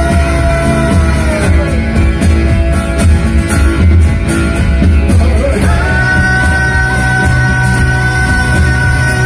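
A live rock band playing loud through a PA, with drums, bass and electric guitars. A long held high note slides down about two seconds in, then glides back up about six seconds in and holds.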